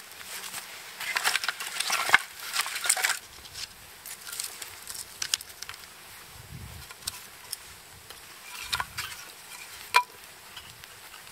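Small wood kindling fire crackling while split kindling sticks are laid across it, the wood clattering and knocking together. The busiest clatter comes one to three seconds in, with one sharp knock near the end.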